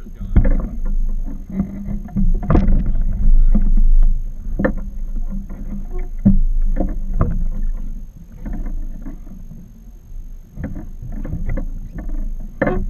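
Small fishing boat on open water: a steady low rumble of wind and water against the hull, broken by sharp knocks, the loudest about two and a half seconds in and again near the end.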